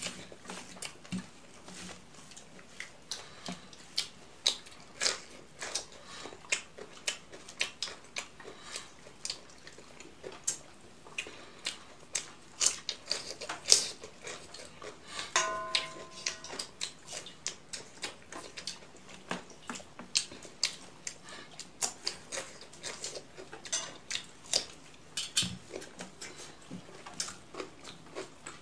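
Close-miked eating: rice being mixed by hand on a plate and chewed, with many irregular wet clicks and lip smacks. A sharp crunch, the loudest sound, comes about 14 seconds in from a bite of raw cucumber, followed by a brief pitched sound.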